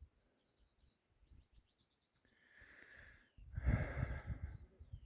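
Faint bird song: a few short high chirps, then a quick run of rapid notes. After that, about halfway in, comes a louder rushing breath close to the microphone.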